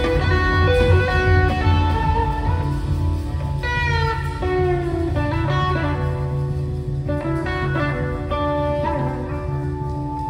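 Live blues-rock band playing an instrumental passage, led by an electric guitar line whose notes glide up and down in pitch, over a steady bass.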